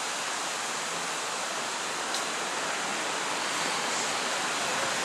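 Steady, even rushing background noise with no distinct events, strongest in the upper range.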